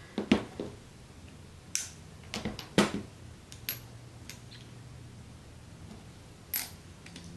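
Small cut pieces of art glass clicking and tapping as they are handled and set down, a handful of scattered sharp clicks with quiet between.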